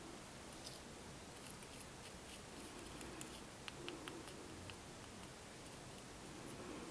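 Faint scrapes and light clicks of a metal palette knife pressing and smoothing paint into a small plastic paint pan, a few scattered strokes with the sharpest click about three seconds in.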